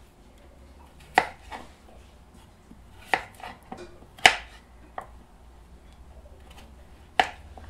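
Kitchen knife cutting a raw potato into large cubes on a wooden cutting board: irregular sharp knocks of the blade striking the board, several of them a second or more apart.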